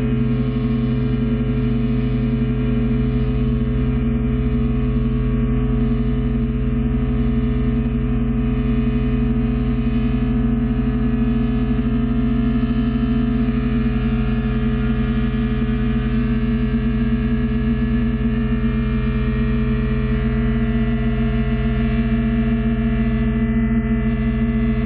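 Sustained drone of many steady stacked tones from electric guitar through a MIDI controller, played with balloons. The loudest tone sits low and holds without a break. A faint high tone glides slowly upward in the second half.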